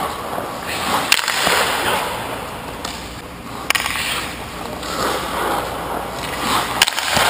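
Goalie's skate blades scraping and carving on the ice as he pushes side to side across the crease, the scrape swelling and fading with each push, with three sharp knocks spread through it.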